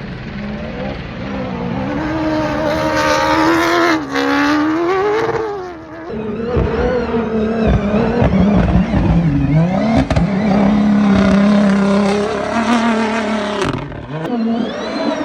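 Dakar rally cars' engines revving and accelerating hard, the pitch climbing and falling with gear changes. The sound breaks off and restarts a few times as it moves between different cars or runs.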